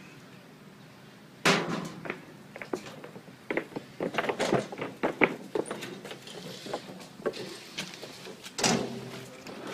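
Wheelbarrow pushed over wooden plank boards, clunking and rattling as it goes, with a sharp thunk about a second and a half in and another near the end.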